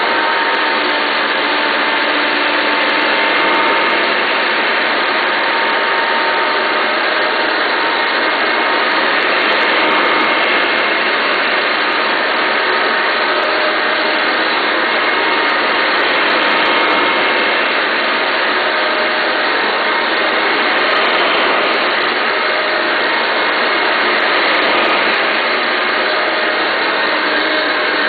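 1988 Hoover Elite 350 upright vacuum cleaner running steadily, its motor giving a thin whine, while it is pushed over spilled uncooked rice. Scattered ticks come from rice grains rattling up into the plastic housing.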